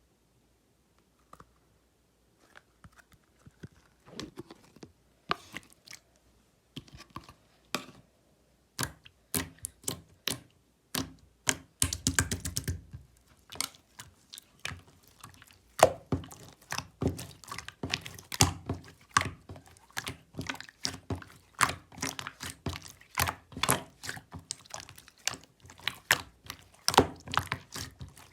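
Clear slime being pressed and squished by hand, giving sticky clicks and air-bubble pops. The clicks start sparse a few seconds in and grow more frequent, with a quick run of crackling about twelve seconds in.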